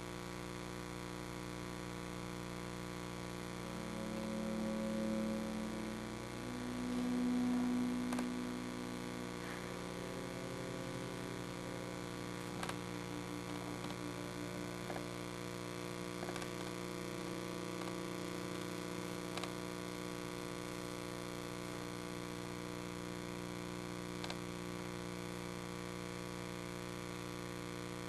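Steady electrical mains hum. Two brief held low tones rise above it about four and seven seconds in, and a few faint ticks come later.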